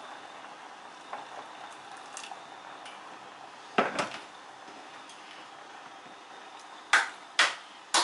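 Pot of tom kha soup on the stove with a faint, steady simmering hiss, and a utensil knocking against the pot twice about four seconds in and twice more near the end.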